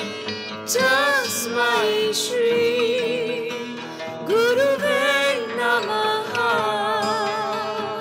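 Background music: a slow melody of long, wavering held notes that slide into pitch, over a steady drone.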